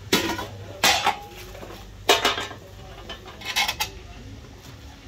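Stainless-steel hot pot bowls and steel-lined lids clinking and clattering against each other as they are handled, in four short bursts of metallic knocks with a brief ring after each.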